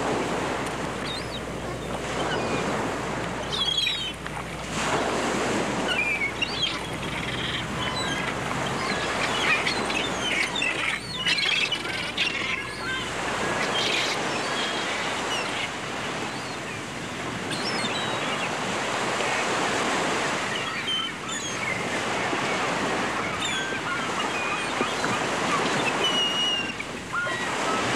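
Sea ambience: waves washing and surging every few seconds, with many short bird calls over them.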